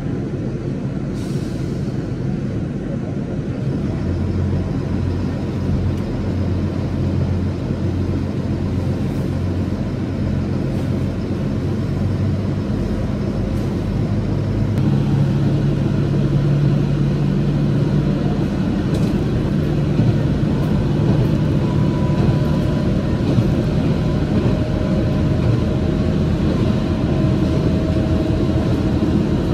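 Train running, a steady rumble with a low drone that steps up in pitch about halfway through.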